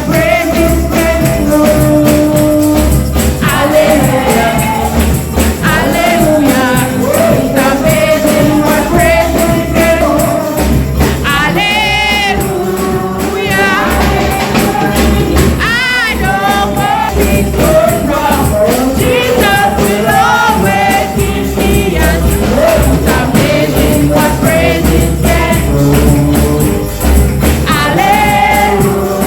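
Congregation and choir singing a gospel song with tambourine, a strong bass beat and band accompaniment.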